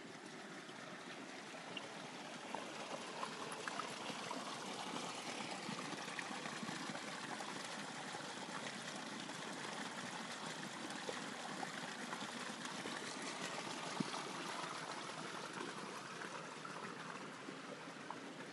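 Spring water gushing out of a gap in a stone wall and splashing onto rocks and into a stone gully: a steady rush of running water, a little louder in the middle than at the start and end.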